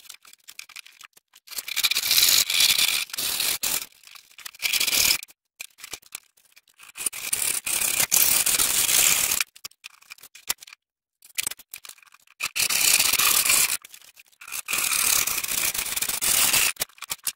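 Handsaw cutting through plywood: quick rasping back-and-forth strokes in several runs of one to two seconds, with short pauses between them.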